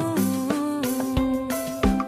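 Background music: an instrumental melody over a steady beat of drum hits.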